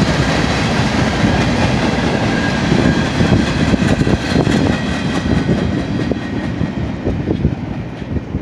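Steel wheels of a maintenance-of-way train's hopper, flatcars and work car rolling past on the rail: a steady rumble with some clickety-clack and a thin high squeal. It fades toward the end as the last cars pull away.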